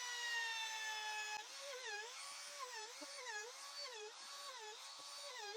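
High-speed router motor with a chamfer bit, running with a steady whine. From about a second and a half in, its pitch dips and recovers over and over, about twice a second, as the bit cuts the chamfer.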